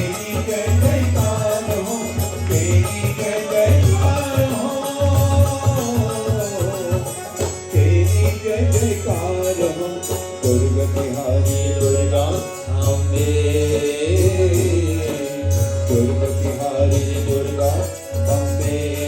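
Devotional Hindu bhajan music: a voice sings a winding melody over a held drone note and a repeating low drum beat.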